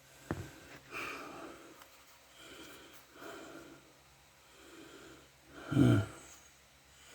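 A man breathing audibly in and out, about a breath a second, with a sharp knock just after the start and a short low grunt near the end.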